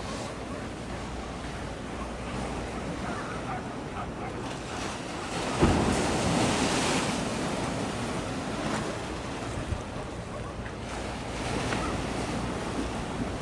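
Wind buffeting the microphone over harbour water washing against a breakwater, with a stronger gust about halfway through; a low steady hum runs underneath.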